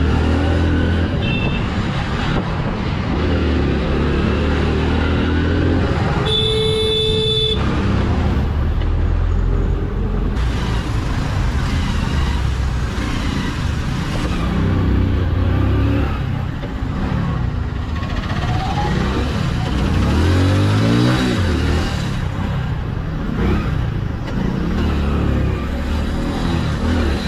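A Hero Splendor Plus motorcycle's single-cylinder engine runs as it rides through dense road traffic, amid surrounding traffic noise. A vehicle horn sounds once for about a second, roughly six seconds in. The engine revs up around twenty seconds in.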